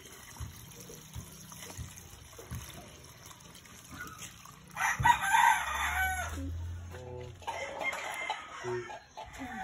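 A rooster crows once about halfway through, the loudest sound here. Shorter clucking calls follow.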